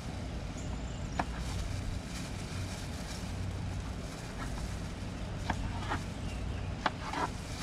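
Kitchen knife slicing Roma tomatoes on a cutting board, with a few sharp taps of the blade on the board, over a steady low rumble.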